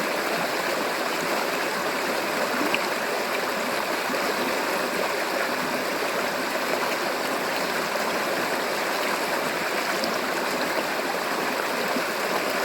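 River water flowing steadily over rocks: an even rushing with small gurgles.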